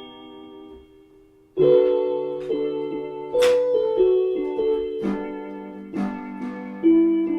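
Keyboard playing held chords: after a short lull, a chord comes in sharply about a second and a half in, and the chords change every second or so, with a few short sharp hits on top.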